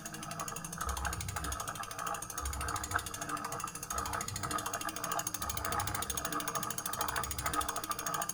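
Rapid, steady ratchet clicking from a mechanism on an e-bike being worked on, the clicks evenly spaced and continuous.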